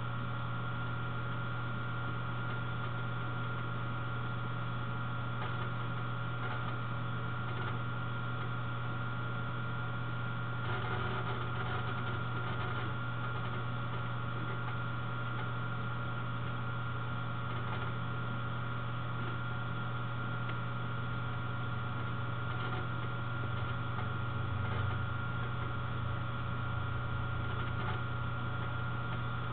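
Steady low electrical hum with a fainter high-pitched whine over it.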